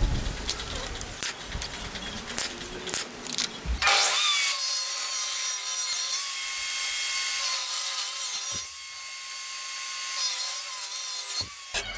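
Table saw starting up about four seconds in and ripping a pallet board, a steady high whine of blade through wood that runs until shortly before the end. Before it, scattered light knocks and clicks of pallet-wood slats being handled.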